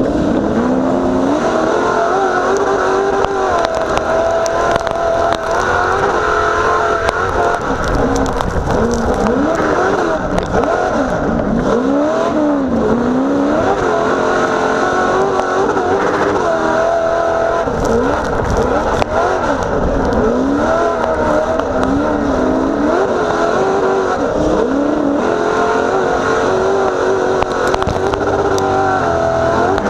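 A 900-horsepower short course off-road race truck's engine at race speed, heard from inside the cab: loud and continuous, its pitch rising and falling again and again as the driver accelerates and lifts through the corners.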